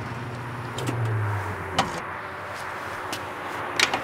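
Petrol-pump hum under a steady background noise, with a few sharp clicks: one strong click a little under two seconds in and a cluster near the end as the fuel filler cap is turned.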